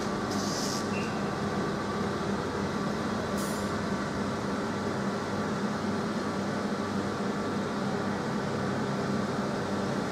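Class 444 Desiro electric multiple unit standing at a platform, its equipment giving a steady hum with a few fixed tones. Two brief high-pitched hisses come about half a second and three and a half seconds in.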